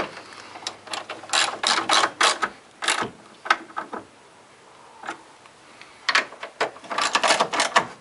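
Hand socket ratchet clicking in several quick runs with short pauses, as a radiator mounting-bracket bolt is turned down and tightened.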